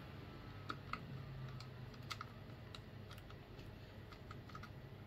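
Light, irregular clicks of keys being pressed on a computer keyboard, over a low steady hum.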